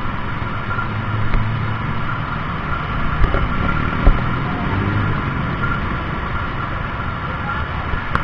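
Steady engine hum, with a few short knocks about three and four seconds in.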